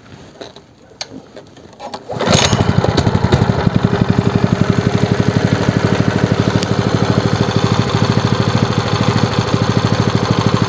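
A Lifan KP230 8 hp single-cylinder four-stroke engine being started: a few clicks, then it catches about two seconds in and runs steadily with even firing pulses.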